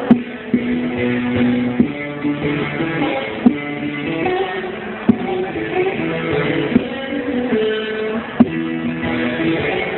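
A plucked string instrument playing a zeybek melody, held notes with sharp struck accents every second or two.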